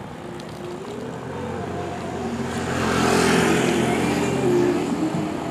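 A motorcycle passing close by, its engine growing louder to a peak about three seconds in, then easing off slightly as it goes past.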